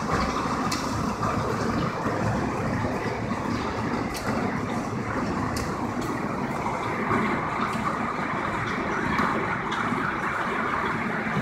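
Heavy hail and rain pelting a street and parked cars in a dense, steady rush, with scattered sharp ticks of hailstones striking close by.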